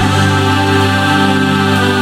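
Background music: slow, sustained chords held steadily throughout.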